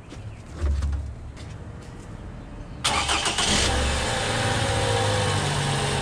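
A low thump just under a second in, then the Toyota's engine starts suddenly about three seconds in on freshly replaced battery terminals, flares briefly and settles into a steady idle.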